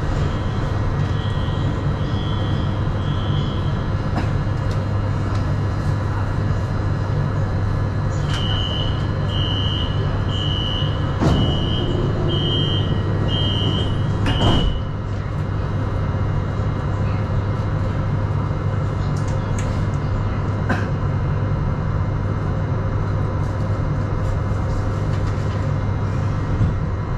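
Puzhen-built B-type metro train standing at a station with a steady low hum from its equipment. The door warning beeps pulse at the start, then again for about six seconds, ending in a loud thud as the doors shut about 15 seconds in.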